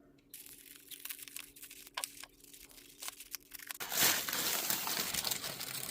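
Package wrapping being handled and opened: scattered crinkles and clicks, then a louder stretch of crinkling and tearing about four seconds in.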